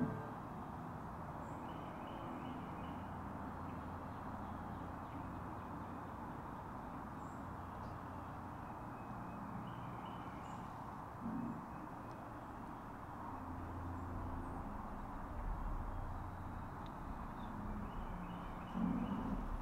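Quiet spring woodland: a steady faint background hush, with distant songbirds chirping in short bursts three times. Two soft low thuds come about halfway through and near the end.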